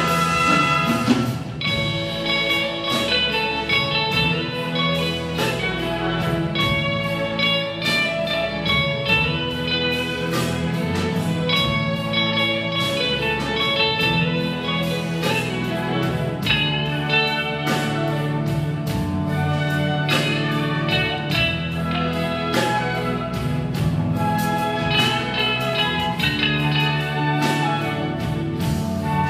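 Electric guitar playing the melody with a full symphony orchestra, strings included, accompanying it.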